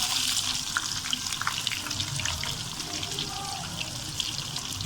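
Onions sizzling in hot ghee: a steady, hissing sizzle that set in just as they went in, with scattered crackles and pops.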